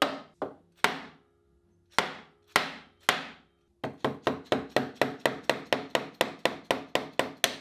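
Hammer blows on a wood chisel driven into a joint between wooden parts to split apart pieces stuck together by their finish. A few spaced strikes, then from about four seconds in a fast, even run of about four blows a second.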